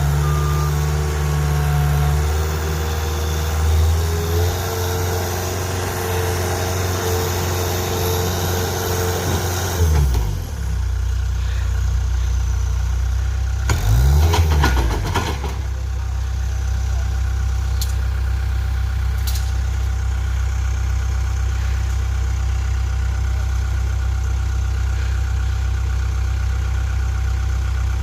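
Engine of a hole digger (auger rig) running. It runs steadily, shifts pitch about ten seconds in, rises and falls briefly around fifteen seconds, then settles into a steady lower run.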